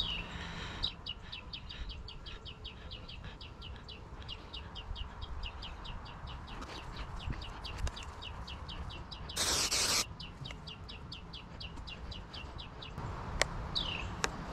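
A bird repeats a rapid high chirp, about six or seven a second, with a few down-slurred calls near the end. About nine and a half seconds in, an aerosol can of spray adhesive hisses for half a second; this is the loudest sound.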